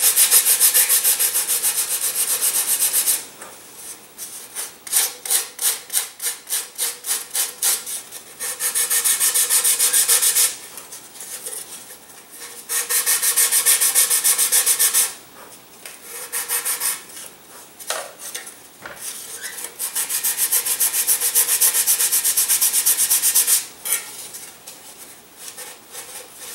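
Sanding block rubbed back and forth along a thin balsa vertical tail to fair it in: spells of fast rasping strokes a few seconds long, one stretch of slower separate strokes about three a second, with short pauses between.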